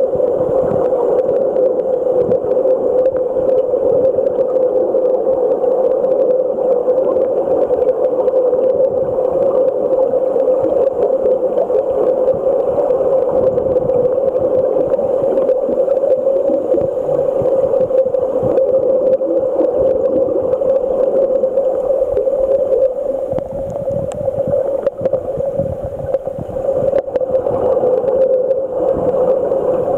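Muffled underwater noise picked up by a submerged camera: a steady rushing with a strong mid-pitched hum, easing a little for a few seconds near the end.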